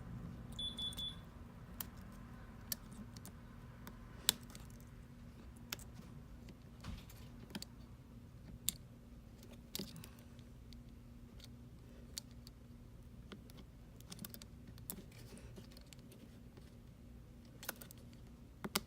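Sparse light clicks and taps from handling a phone and small repair tools at a workbench, over a faint steady low hum. A brief high beep sounds just under a second in.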